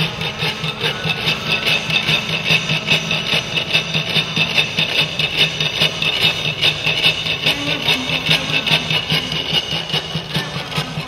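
Yaqui deer-song rasps (hirukiam): notched wooden sticks scraped rapidly back and forth across half-gourd resonators in a steady, fast, unbroken rhythm.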